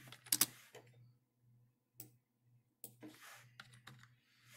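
A few faint, scattered clicks of a computer mouse and keyboard, over a low hum.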